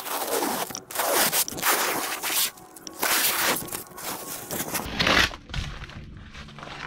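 Blue painter's masking tape being peeled off a boat hull along the edge of the freshly coated bottom, with four or five long ripping pulls in the first five seconds, then quieter.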